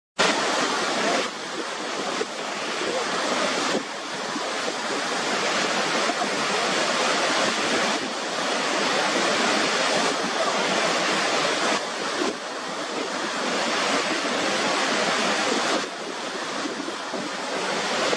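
Steady roar of a large waterfall, water pouring over the brink, with a few sudden small steps in loudness.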